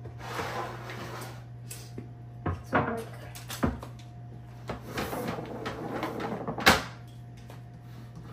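Kitchen counter handling noises: a few sharp knocks and clatters of things being set down and moved, the loudest near the end, with soft rustling between and a steady low hum underneath.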